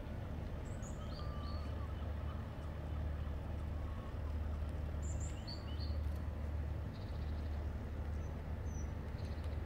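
Low steady rumble, with a few short, high bird chirps about a second in and again about five seconds in.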